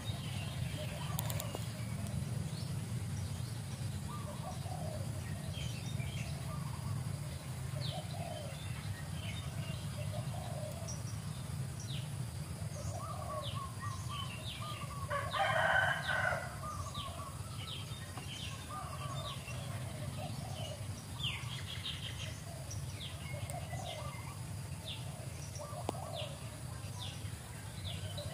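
Short animal calls repeating every second or two, with small high chirps between them and one louder, longer call about fifteen seconds in, over a steady low hum.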